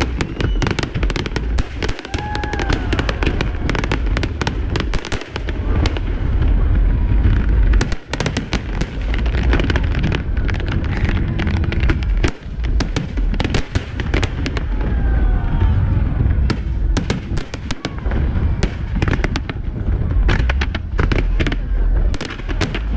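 Aerial fireworks display: a continuous run of deep booming shell bursts mixed with dense, rapid crackling.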